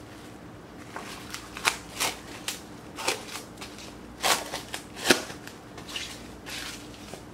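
Plastic cling wrap crinkling and crackling in irregular bursts as it is stretched and pressed around a plate.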